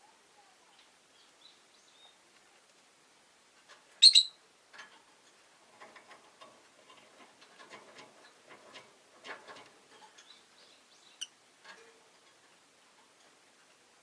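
Rosy-faced lovebirds: one loud, sharp call about four seconds in, among soft chirps, with a run of quiet clicks and scratches over the next several seconds.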